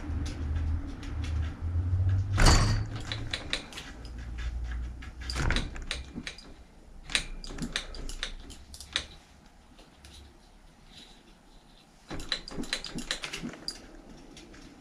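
Hand work on a bicycle: a run of small metallic clicks and rattles, with louder knocks about two and a half and five and a half seconds in. A low rumble sits under the first few seconds, and there is a short lull before more clicking near the end.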